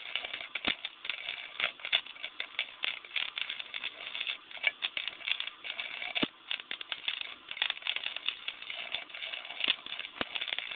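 MIG welder arc crackling and sputtering unevenly as wire feeds into the weld.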